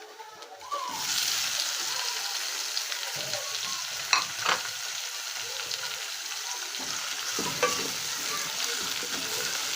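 Food sizzling in hot oil in a cooking pot, starting about a second in, with a spoon stirring and clinking against the pot a few times.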